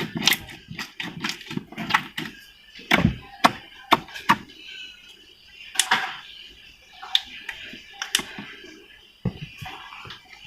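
Slime being squeezed and played with by hand, giving irregular sharp pops and clicks, about a dozen of them, a few much louder than the rest.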